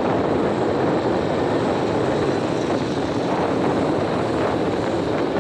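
Steady rushing wind and road noise from riding along a road at speed, the wind buffeting the microphone.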